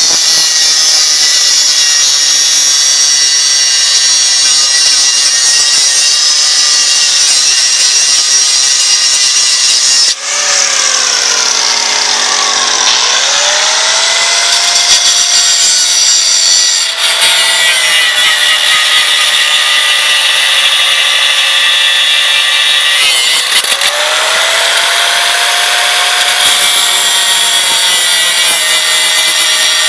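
Angle grinder cutting steel in one long run. Its motor whine drops under load about 10 and 23 seconds in, then spins back up.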